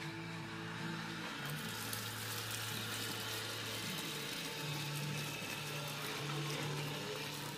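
Kitchen faucet running, its stream splashing into a plastic tub of wet raw angora goat fleece as the tub fills for a rinse; the water starts about a second and a half in. Soft background music with held notes plays underneath.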